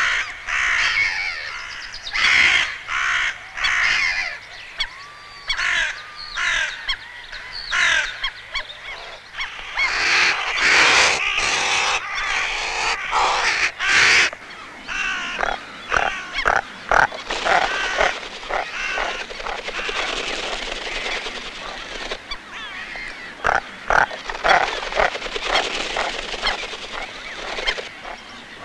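Hooded crows cawing: many harsh, repeated calls, some in quick runs, heaviest in the middle and again toward the end.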